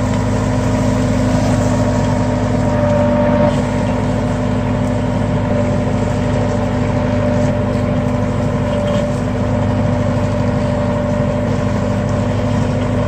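Tractor engine running steadily while it pulls a root-pruning knife through the orchard soil.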